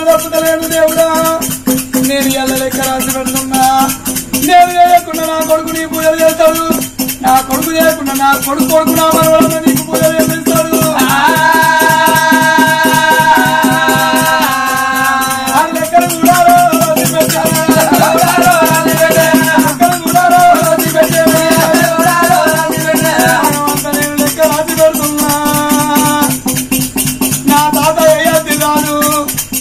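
Oggu Katha folk singing in Telugu: sung narration with a chorus, over a steady, fast jingling percussion beat. About halfway through the voices hold a long drawn-out phrase together.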